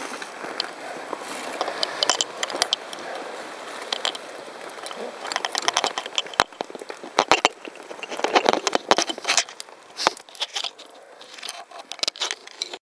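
Handling noise from a hand-held camera as it is moved against a mossy concrete wall beside a canoe: rustling and scraping with many sharp clicks and knocks, which come thickest between about five and ten seconds in. The sound cuts off abruptly just before the end.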